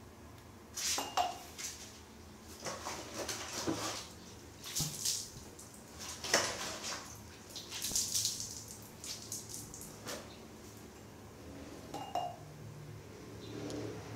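Irregular clinks, knocks and short splashy hisses as a small plastic bottle of cleaner and a hand work against a ceramic toilet bowl and floor tiles. Two of the knocks, about a second in and near the end, ring briefly.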